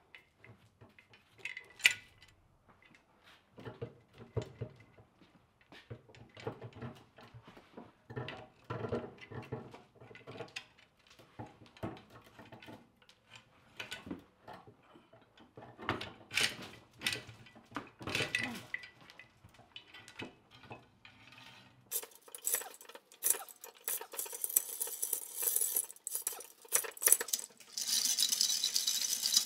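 Rusty, unrestored Wright Model 45 screw chain hoist being worked by hand, its iron chains clinking and rattling against the hoist in irregular bursts. Toward the end the hand wheel spins fast and the rattling becomes continuous.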